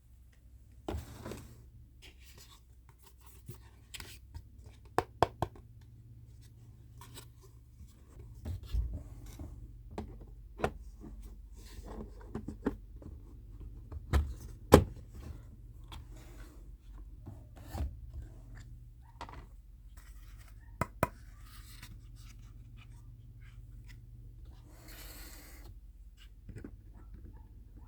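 Small kitchen-set pieces and their packaging being unboxed and handled: scattered light clicks, taps and rubbing, with a few sharper clacks and a short rustle of packaging near the end.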